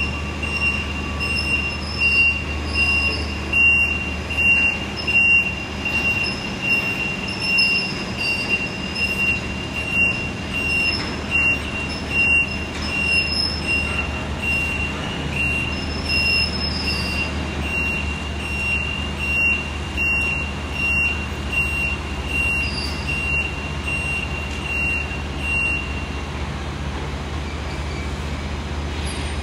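Rubber-tyred gantry container crane travelling over a truck: a steady low engine drone with a high warning beeper pulsing over and over, which stops a few seconds before the end.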